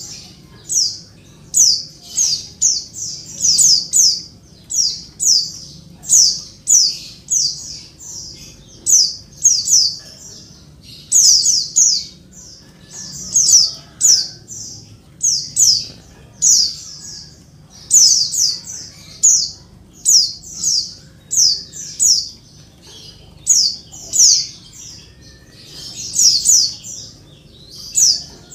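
Female white-eye (pleci) calling: short, sharp, high notes in quick clusters of two to four, repeated about once a second. This is the call bird keepers play to get male pleci to answer and sing.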